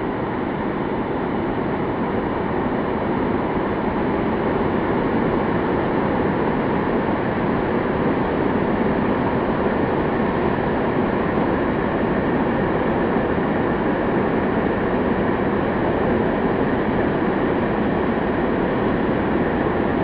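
Mountain waterfall cascading down a steep rock face: a steady, unbroken rush of falling water.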